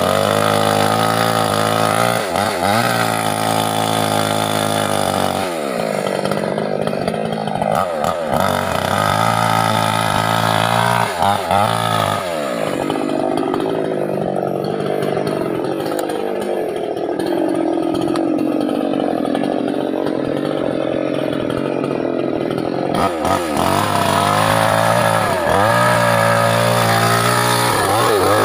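Small two-stroke mini chainsaw running hard, its engine note dipping and climbing again several times. For about ten seconds in the middle the pitch drops and wavers lower, like the saw bogging under load in a cut through teak, then it revs back up.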